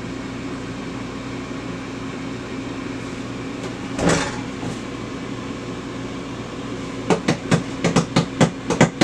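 Ninja air fryer running, its fan giving a steady hum. There is one short burst about four seconds in. From about seven seconds in come sharp strikes, about three or four a second.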